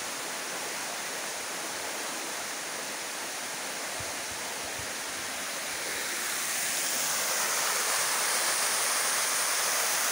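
Steady rush of water falling and running over rocks from a small waterfall and its shallow stream, growing louder about two-thirds of the way through.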